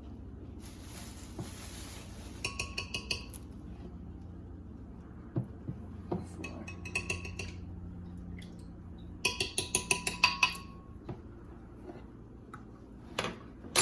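A metal spoon clinking and tapping against a kitchen container while scooping pumpkin into the mix: three bursts of quick ringing clinks, the last and loudest about nine seconds in, then two single knocks near the end.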